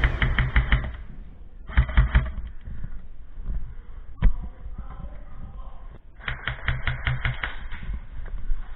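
Airsoft guns firing rapid full-auto bursts of sharp clicking shots, about ten a second, in three bursts, with a single sharp snap in between.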